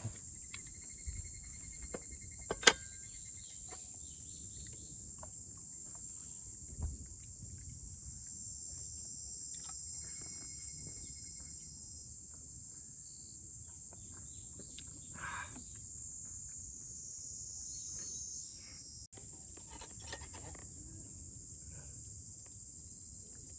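A steady high-pitched chorus of insects, trilling without a break, with a few faint clicks and knocks, the sharpest about three seconds in.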